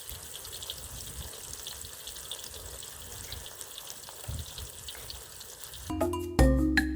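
Eggplant slices frying in a pan of hot oil: a steady sizzle with fine crackling. About six seconds in, louder marimba-like background music comes in.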